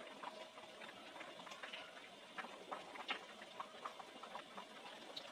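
Pot of mung bean soup boiling on a gas stove: a soft, irregular popping and ticking of bubbles breaking at the surface.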